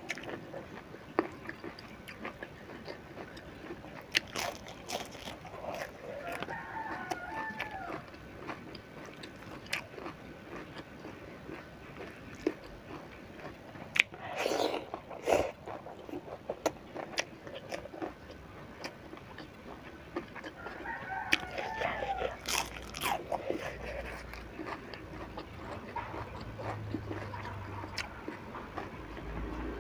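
Close-up eating sounds of crisp fried sepat fish (gourami) being bitten and chewed: crunching, crackling and wet mouth sounds, loudest about halfway through. A rooster crows twice in the background, at about a quarter of the way in and again about two-thirds in.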